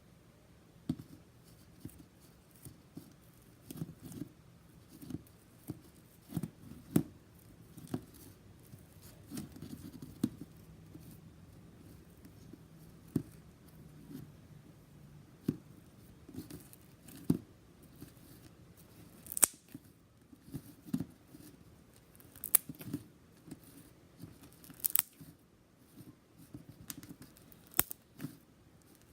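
Slime being handled by hand: irregular sharp clicks and crackles, a second or so apart, with soft squishy thuds underneath.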